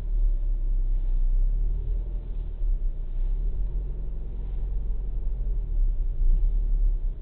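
Car engine and cabin rumble, a steady low drone heard from inside the car through a dashcam's built-in microphone, as the car moves slowly and turns.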